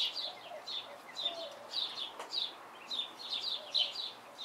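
Birds chirping in quick runs of short, high notes, several a second, again and again.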